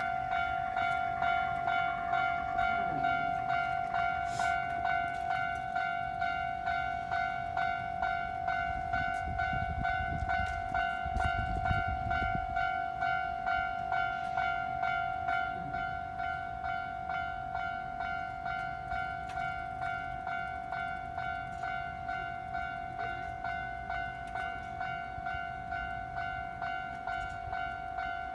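Japanese level-crossing warning bell ringing continuously, an even, repeating electronic ding. A low rumble swells under it about ten seconds in and fades by about thirteen seconds.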